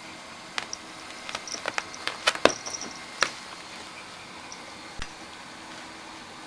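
Scuffling of a calico cat and a Pomeranian on a padded chair: a run of small sharp clicks and taps in the first half, and one more tap later.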